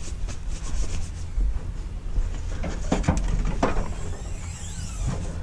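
Rubbing and scuffing handling noise close to a body-worn camera's microphone, over a low steady rumble. Two sharp knocks come about three and three and a half seconds in.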